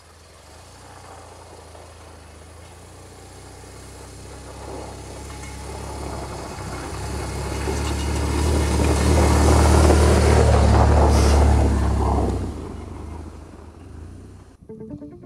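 A motorcycle approaches on a packed-snow road and rides past: its low engine rumble and tyre rush grow steadily louder to a peak about ten seconds in, then fall away quickly. Music starts just before the end.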